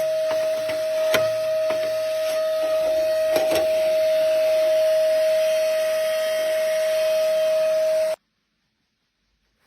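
Ash vacuum running with a steady motor hum and hiss as it sucks up ash and debris, with a few clicks and knocks of the nozzle along the way. The sound stops abruptly about eight seconds in.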